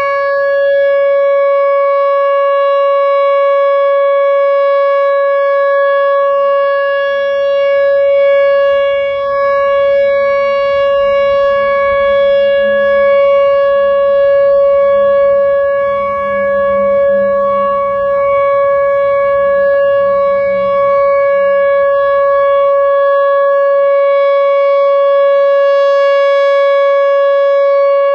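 Whelen Vortex R4 outdoor warning siren sounding its steady alert signal: one loud, unbroken high tone with overtones, holding the same pitch throughout.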